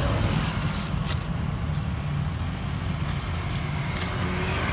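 Steady low rumble of road traffic and engines at a roadside street stall, with a few light crinkles and clicks from a plastic bag being handled.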